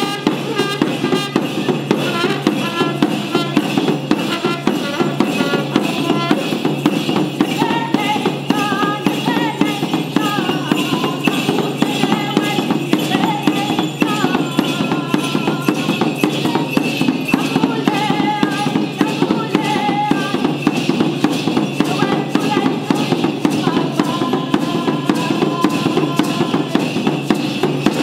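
Mapuche purrun dance music: a kultrun drum beaten in a fast, steady rhythm, with a wavering melody above it.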